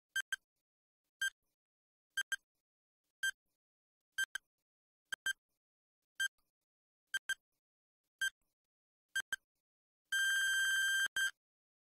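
Countdown timer sound effect: a short electronic beep about once a second, several of them quick double beeps, ending near the end with one long beep of about a second and a last short beep as the countdown runs out.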